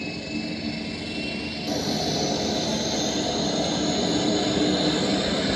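Turboprop aircraft engine noise for the mini P-3C's number four engine start: a steady whine and rumble with a few held tones, stepping up louder about a second and a half in as the engine comes up.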